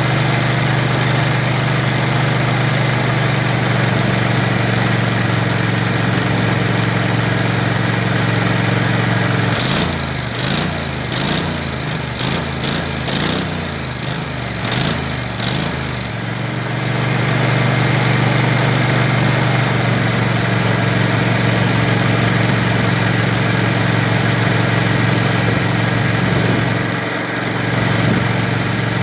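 Landmaster LM650 UTV engine idling steadily. About ten seconds in it runs rough for several seconds with irregular pops and stumbles, then settles back to a steady idle; the unevenness fits the hard-starting engine that keeps dying.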